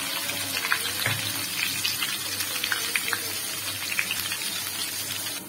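Garlic, green chillies and butter sizzling and crackling in hot mustard oil in a wok: a tadka for dal being fried.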